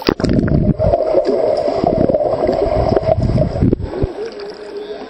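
Underwater sound of a small child kicking and splashing in a swimming pool, heard through a submerged microphone: a muffled rushing and bubbling that starts suddenly and stops about four seconds in as the microphone breaks the surface.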